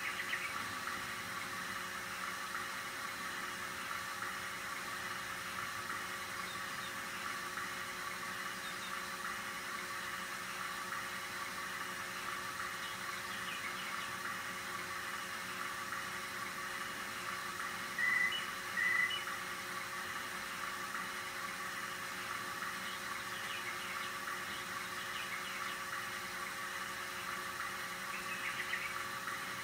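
RCA 3700F cassette deck's tape transport running: a steady mechanical whir from its motor, belts and flywheel, with a few steady hum tones underneath. About two-thirds of the way through, two brief high-pitched sounds about half a second apart are the loudest thing heard.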